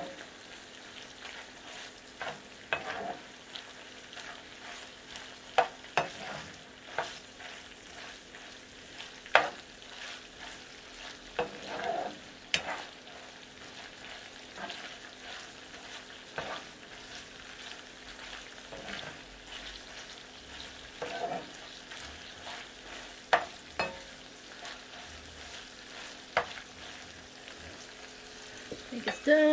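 Shredded chicken sautéing in oil in a skillet, with a faint steady sizzle. It is being stirred, with scattered sharp clicks and knocks of a utensil against the pan.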